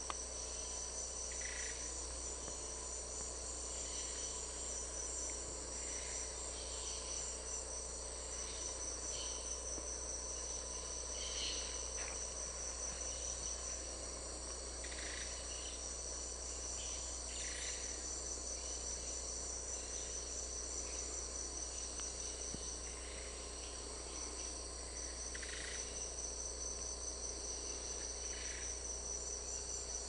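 Rainforest insect chorus: a steady, high-pitched pulsing trill, with short, brief calls from other animals breaking through every couple of seconds.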